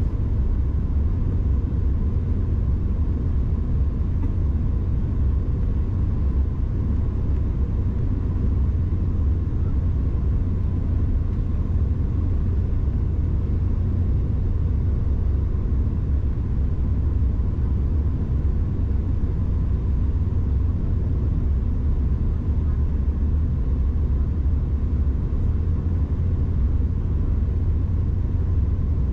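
Steady low cabin rumble of a Bombardier CRJ-700 regional jet in flight, the noise of airflow and its rear-mounted turbofans heard from inside the cabin.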